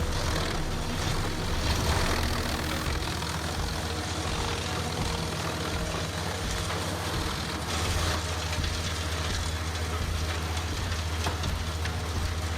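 Engine of a heavy wood-processing machine running steadily with a low hum, with rougher noisy surges a few times as wood is fed through and chipped.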